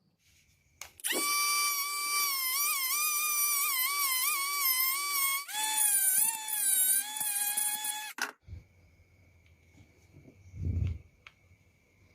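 Maktec MT081 cordless drill's motor running free with a high whine that wavers in pitch. It drops to a lower pitch about five and a half seconds in and cuts off about eight seconds in. A dull thump follows near the end.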